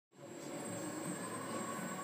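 Electric motor and propeller of a small indoor F3P aerobatic model aeroplane running with a steady whine. It cuts in suddenly just after the start.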